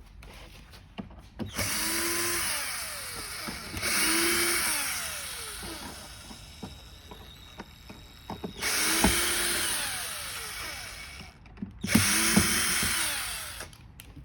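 Cordless drill-driver driving screws in four short runs of about two seconds each, the motor's pitch rising then sagging under load in each run, with small clicks in between.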